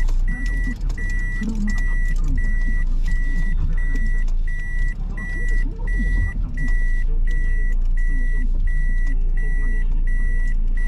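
Car's in-cabin reverse warning beeper sounding with the gear in reverse: a steady high beep about twice a second. Under it is the low hum of the engine idling.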